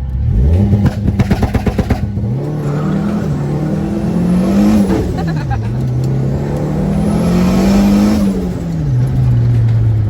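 Chevrolet Corsa pickup's 1.6 turbocharged engine revving hard under acceleration, with a rapid fluttering chatter about a second in. It then pulls up through the revs twice, the pitch dropping at each gear change around five and nine seconds in.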